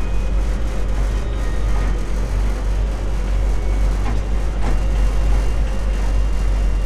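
An old truck driving, heard from inside its cab: a steady low engine and road rumble, with a couple of light knocks about four and five seconds in.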